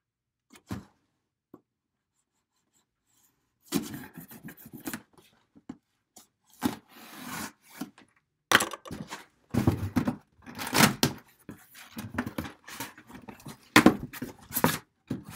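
A cardboard shipping box being cut and torn open with a folding pocket knife: packing tape ripping, cardboard scraping and rustling, and several sharp knocks. It starts about four seconds in, after near silence.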